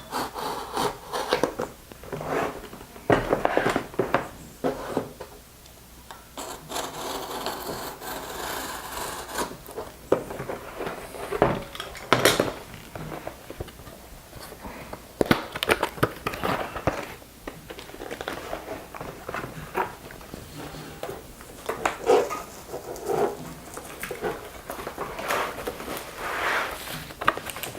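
A cardboard box and its packaging being opened and handled: irregular scraping and rubbing with scattered knocks, including a longer stretch of rubbing about a quarter of the way through.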